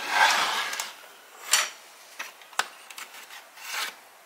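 Hands handling a wooden toy workbench: wooden parts rubbing and knocking, with a few sharp wooden clicks.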